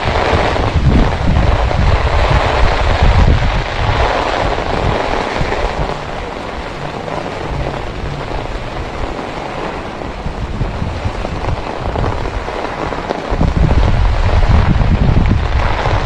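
Heavy rain pouring onto a wet street, with wind gusts buffeting the microphone. The gusts ease about a third of the way through, leaving mostly the rain's hiss, and come back hard a few seconds before the end.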